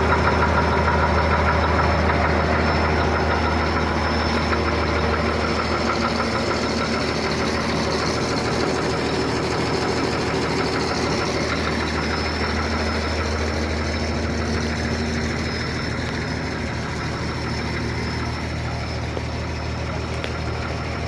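Engine of a forklift or wheel loader idling steadily, with a thin high whine over its low hum, growing slightly quieter over the stretch.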